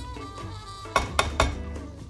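Three quick clinks of a metal utensil knocking against a cooking pot, about a second in, over background music.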